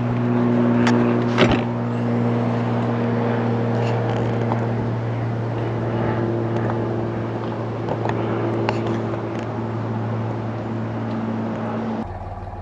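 A steady machine hum from a running motor or engine, with a few light knocks and handling clicks about a second in; the hum drops to a quieter level near the end.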